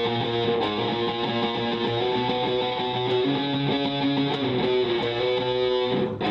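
Electric guitar played through an amplifier and a homemade delay pedal set to a short slap-back echo, the notes ringing on and overlapping. The pedal is modded to darken the repeats.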